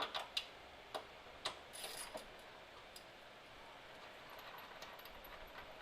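Faint, irregular metallic clicks of hand tools working a bolt out of the car's rear subframe, mostly in the first two seconds, with a short hiss near two seconds and a few faint ticks near the end.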